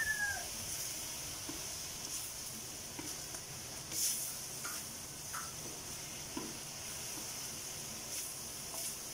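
Vegetables sizzling steadily in a metal wok over a gas flame while a wooden spatula stirs them, scraping and knocking against the wok now and then.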